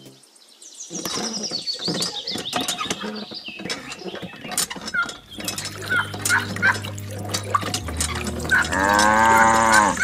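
A cow mooing, one long call near the end.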